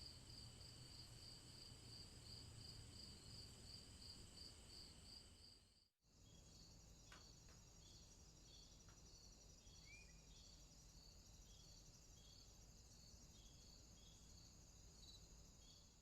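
Faint crickets chirping in a steady rhythm, about three chirps a second, over a low hiss. About six seconds in the sound drops out for a moment and resumes as a different insect chorus with a faster, higher trill and slower, spaced chirps.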